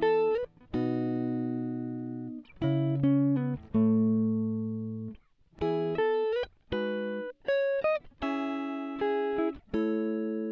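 Guitar music: a run of plucked notes and chords, each left to ring and fade before the next, with a few slides in pitch.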